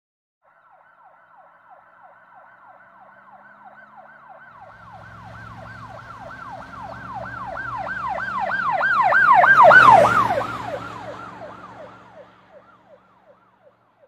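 Emergency vehicle siren in a fast rising-and-falling yelp, about three cycles a second, over the low rumble of road traffic. It grows louder as the vehicle approaches, is loudest about ten seconds in, then fades away as it passes.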